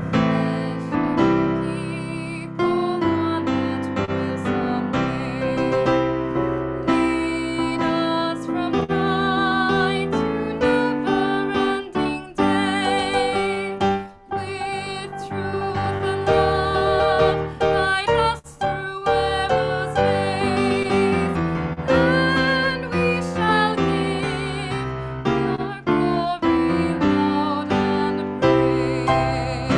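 Piano music, with a voice singing over it with vibrato.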